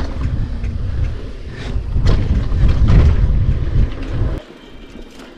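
Wind buffeting the rider's camera microphone over the rolling rumble of mountain bike tyres on a dirt trail, with scattered rattles and knocks from the bike over bumps. It cuts off suddenly about four seconds in.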